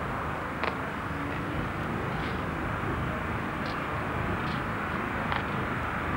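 Steady outdoor rumble and hiss, with a few faint short clicks scattered through it.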